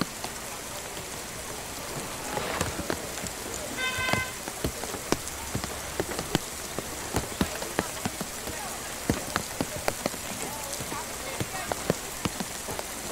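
Rain falling, with irregular close drops tapping over a steady hiss.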